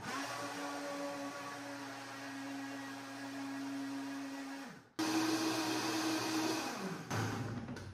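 Countertop blender motor running steadily, blending kale, apple and water into a green juice. About five seconds in it cuts off abruptly and comes back louder and higher-pitched, then near the end the motor winds down with a falling pitch.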